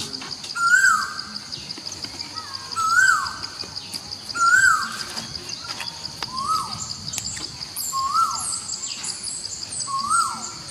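Outdoor ambience: a short animal call repeated about six times, each rising then dropping sharply in pitch, over a steady high insect buzz. Faint higher chirps come near the end.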